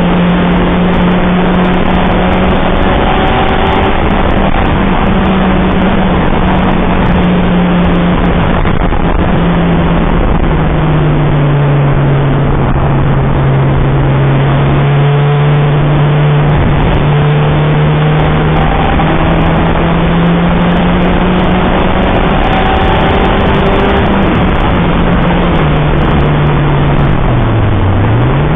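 Citroën Saxo VTR's four-cylinder petrol engine running hard at high, steady revs at track pace, over loud, constant road and wind noise. The engine note steps down about a third of the way in and slowly climbs again, then near the end the revs dip and rise twice, as with lifts or gear changes.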